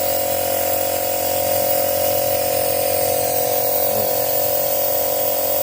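Small machine motor running steadily with a constant whine and hum, from service equipment working on the engine's cylinders during a carbon-clean.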